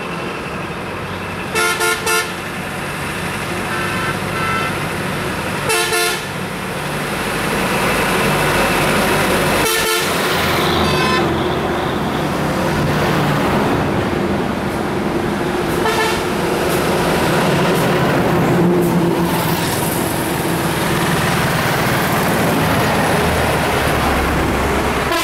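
Heavy road traffic of buses and trucks passing close on a highway, engines running and tyres on the road, growing louder as a bus goes by. Horns toot repeatedly: three quick toots about two seconds in, two fainter ones near four seconds, another near six seconds and one more near the middle.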